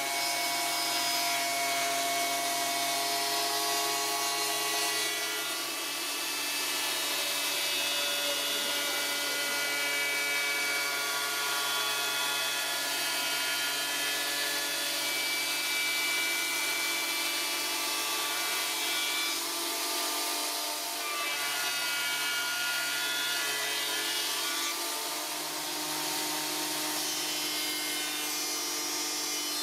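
Electric woodworking machines running steadily while old pallet boards are planed and sanded, a continuous machine noise with a whine of several tones that shift as the work goes on.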